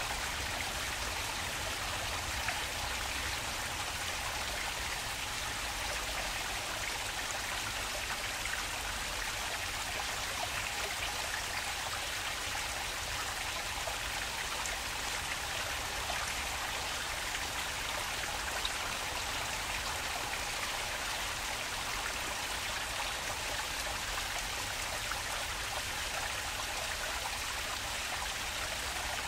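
Water flowing and splashing steadily in a park stream, a continuous even rush and patter with no breaks.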